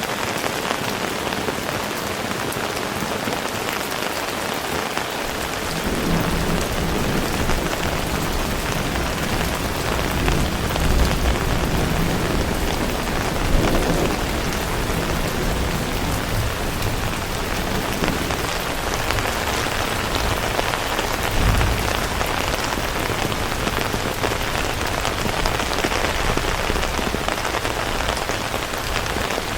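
Heavy rain falling steadily in a dense hiss. From about six seconds in, a low rumble of thunder joins and rolls on, swelling several times.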